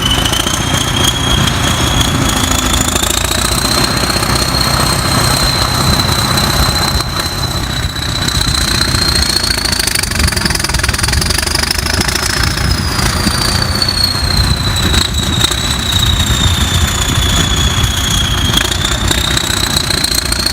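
Heavy-equipment diesel engine running, with a steady low rumble and a high whine that slowly rises and falls in pitch.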